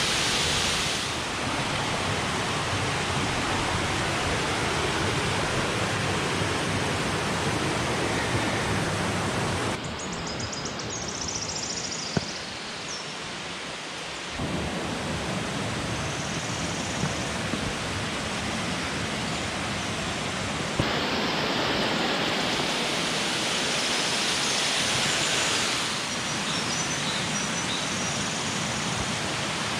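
Waterfalls rushing: a steady, dense roar of falling water that shifts in level and tone abruptly a few times, quieter for a few seconds about a third of the way in.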